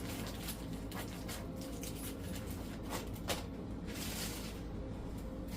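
Fabric and packaging being handled: soft rustling with a few light clicks and one sharper knock, over a low steady hum.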